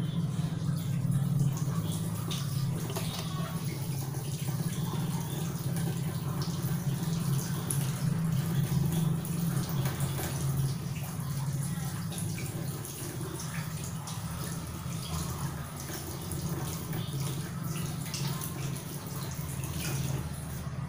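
Tea and agar-agar mixture heating in a saucepan on a gas stove, bubbling with small scattered pops and ticks, over a steady low hum.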